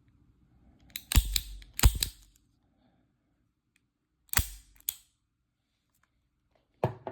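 A handgun being handled: sharp mechanical clacks and clicks in three clusters, about a second in, about four and a half seconds in, and near the end.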